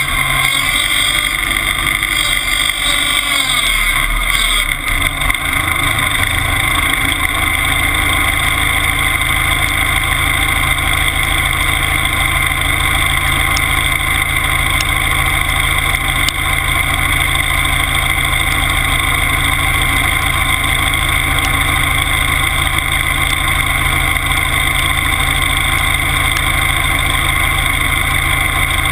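Timberjack skidder's engine running steadily as the machine drives across a field. The pitch shifts a little in the first few seconds, then holds even.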